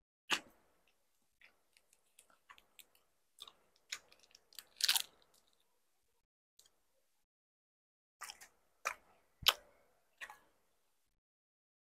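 Close-miked chewing and biting of bánh ít lá gai, a soft, sticky glutinous-rice cake: scattered wet mouth smacks and clicks. The loudest come just after the start, in a cluster around five seconds in, and again about nine and a half seconds in.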